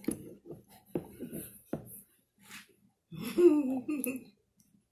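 A toddler drinking a smoothie from a small glass: a few sharp clicks in the first two seconds, then a short hiss, and a brief vocal sound with a wavering pitch a little after three seconds in, the loudest sound.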